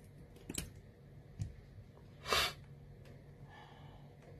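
Small handling clicks and taps of metal tools and parts on an opened iPhone X's frame: a sharp click about half a second in and a duller tap a second later. About two seconds in comes the loudest sound, a short breathy hiss.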